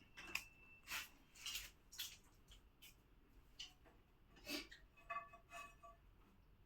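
Faint eating sounds: soft chewing and mouth noises, short and spaced about a second apart, with a few light clicks.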